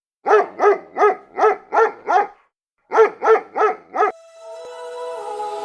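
A Shiba Inu barking: six quick barks, a short pause, then four more, about three barks a second. Music fades in near the end.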